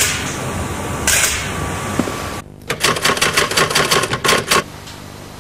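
A quick run of about ten sharp mechanical clicks over two seconds, then a low steady background.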